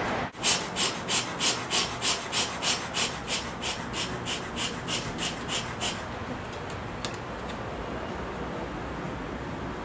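Bee smoker's bellows puffing smoke onto an exposed honey bee colony, a quick run of about three puffs a second that fades out after about six seconds.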